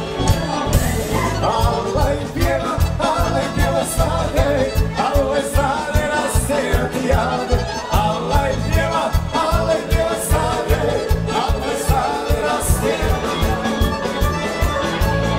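A dance band playing a fast, upbeat tune with a singer over a steady quick beat and heavy bass, music for a hand-held circle dance.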